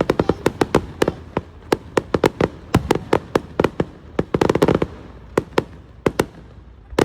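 Fireworks going off in quick succession: a string of sharp bangs and cracks, several a second, with a denser burst of crackling about four and a half seconds in.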